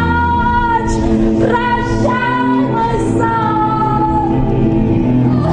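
Music: a female voice singing long held notes that step from pitch to pitch over a low sustained accompaniment.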